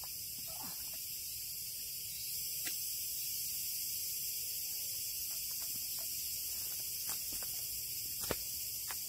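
Steady high-pitched insect chorus, with a few light knocks, the sharpest about eight seconds in.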